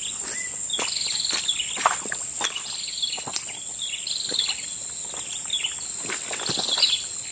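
Wild birds calling in short, repeated chirping phrases that fall in pitch, over a steady high-pitched insect drone.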